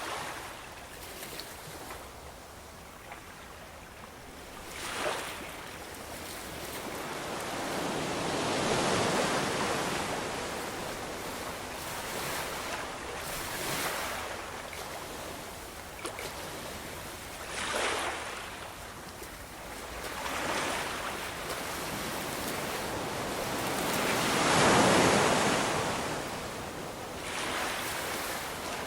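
Ocean waves breaking and washing up a shore, a continuous rush that swells and ebbs. There are shorter crashes about 5, 14 and 18 seconds in, and two longer, louder surges around 9 and 25 seconds.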